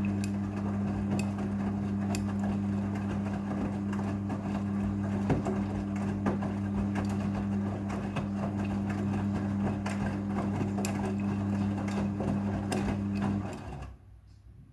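Midea front-loading washing machine running in its rinse cycle: a steady motor hum with scattered clicks and rattles, which fades out near the end.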